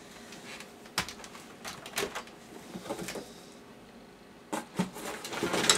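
Hands rummaging in a cardboard box: light knocks and rustles about once a second, then a louder rustle of paper and plastic near the end.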